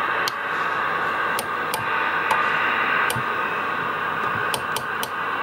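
Midland 79A-892 CB radio receiving on AM with nobody transmitting: a steady hiss from its speaker, broken by several sharp clicks as the channel selector knob is turned.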